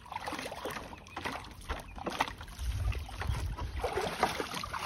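Water sloshing and splashing irregularly as a German Shorthaired Pointer wades and steps about in a shallow plastic kiddie pool.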